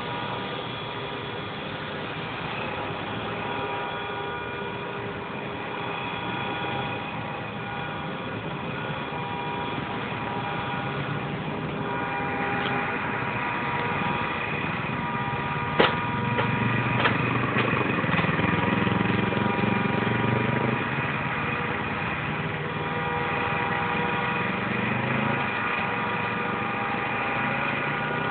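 Road traffic and running engines: a steady engine hum with several held tones throughout, with a passing vehicle's rumble swelling and fading in the middle. There is one sharp click near the middle.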